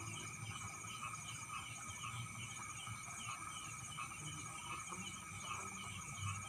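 Night chorus of crickets and frogs: steady high-pitched trilling with a short chirping call repeating a few times a second.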